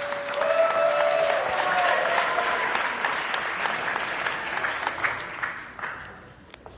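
Audience applauding, with a few voices calling out in the first couple of seconds; the clapping dies away over the last second or two.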